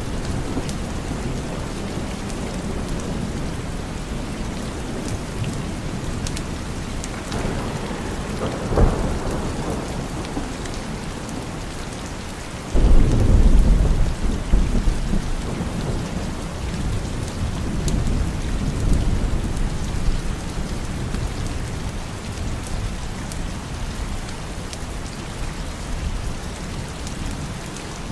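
Steady rain with thunder: a short crack about nine seconds in, then a sudden loud clap about thirteen seconds in that rolls on as low rumbling for several seconds.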